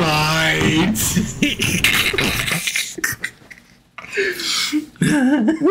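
A man laughing hard close into a microphone: a high pitched squeal at the start, then breathy, puffing bursts, a short break past the middle, and more laughter with a wavering voice near the end.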